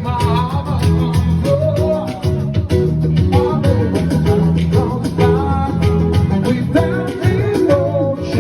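Live music: a singer with guitar accompaniment over a steady, upbeat rhythm.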